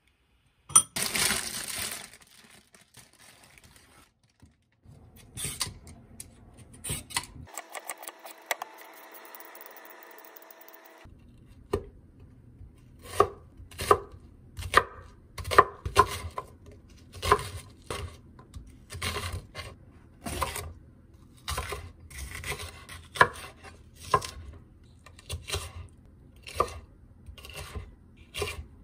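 A chef's knife cutting through onion and then green bell pepper onto a wooden cutting board, each stroke ending in a knock on the board, in a steady rhythm of about one cut a second through the second half.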